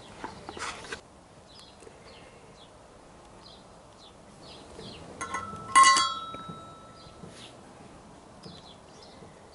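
A sharp metallic clink with a brief ringing about six seconds in, as steel steering-stem parts (bearing, washer, stem) knock together while being fitted. Faint bird chirps repeat throughout.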